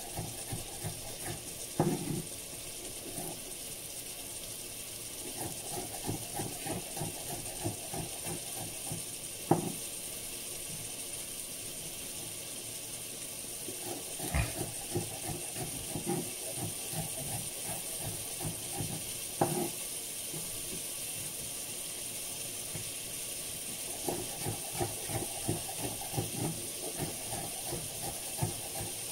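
Onions and peppers frying in a pan: a steady sizzling hiss, with soft irregular ticking and a few sharp knocks of a utensil against the pan.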